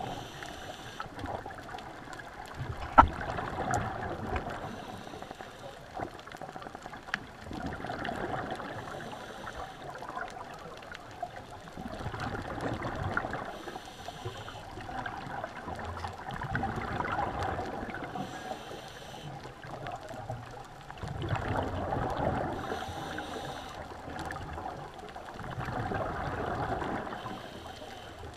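Scuba diver breathing through a regulator underwater, a breath about every four to five seconds: a short hiss of the demand valve on each inhale, then a longer bubbling rush of exhaled air. There is a single sharp click about three seconds in.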